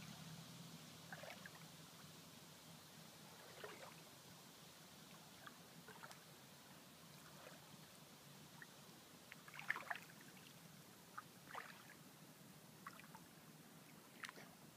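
Near silence: faint lapping of shallow lake water, with scattered small, irregular splashes and trickles, the clearest about two-thirds of the way through.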